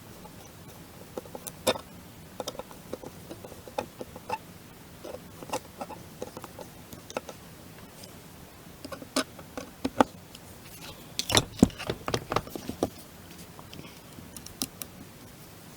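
Small metal clicks and taps as a screw is fitted and turned to fasten the lever-action .22 rifle's mechanism to the barrel, with a quick run of louder clicks about eleven seconds in.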